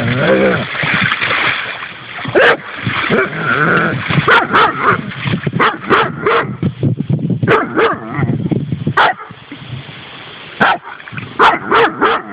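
Weimaraner splashing and pawing in shallow water with many short splashes, whining and yipping as it tries to get at something under the surface.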